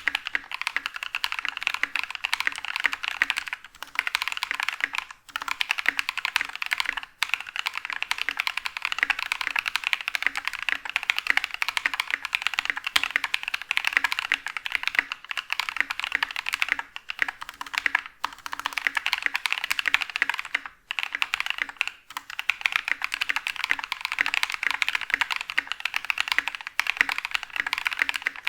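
Fast typing on a mechanical keyboard fitted with lubed and filmed NovelKeys Cream linear switches: a steady stream of key presses, broken by a few short pauses.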